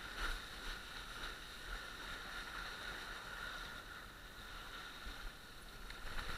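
Steady rush of water and wind as a windsurf board sails across choppy water.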